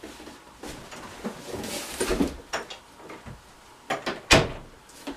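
Household door handled and a large cardboard product box carried in, with rustling, footsteps and several sharp knocks; the loudest knock comes about four seconds in.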